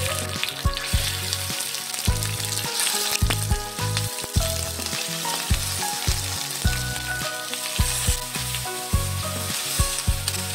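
Raw chicken pieces sizzling in hot oil in a stainless steel pan as more pieces are laid in, a steady crackling fry.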